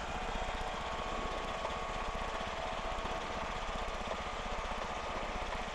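Challenger II ultralight's engine idling steadily on the ground.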